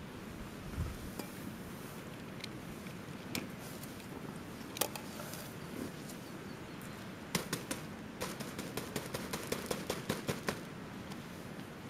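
Irregular sharp clicks and taps over a steady background hiss, a few scattered at first, then a quick run of them in the last third; a single low thud about a second in.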